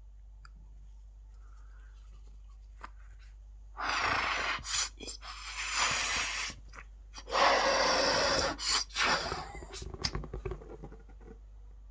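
A white rubber balloon being blown up by mouth: two long, breathy blows into it starting about four seconds in, each broken by short pauses for breath, then a few shorter puffs near the end.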